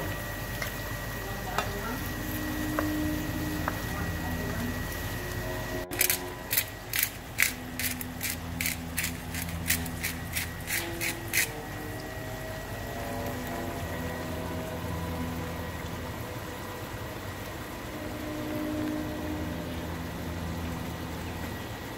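Hand-twisted spice grinder turned over a pan: a quick run of about a dozen sharp clicks, a little over two a second, starting about six seconds in and stopping about five seconds later. Faint voices and low kitchen noise underneath.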